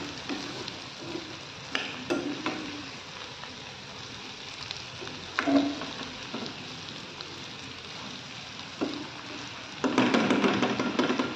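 Diced potatoes and onions sizzling in oil in a kadhai while a metal spatula stirs and scrapes against the pan. There are a few single scraping strokes, then a run of busier stirring near the end.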